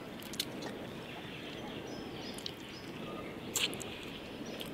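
Quiet outdoor background with faint bird chirps, and a couple of short soft clicks, about half a second in and again near the end, from gnawing on a piece of braised duck.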